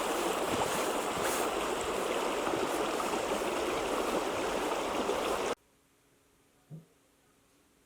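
Stream water running, a steady rushing babble that cuts off abruptly about five and a half seconds in, leaving near quiet with one faint soft knock.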